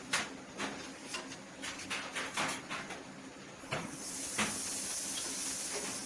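Metal spoon scraping and clicking irregularly against a frying pan as a butter-and-flour mixture is stirred on a gas stove. About four seconds in, a steady high hiss sets in and continues.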